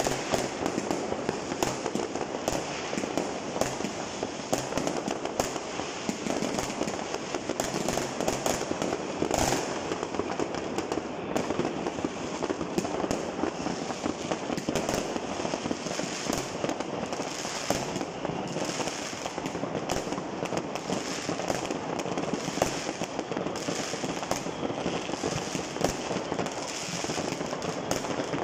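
Many fireworks and firecrackers going off at once: a dense, continuous crackling packed with frequent sharp bangs, with no pause.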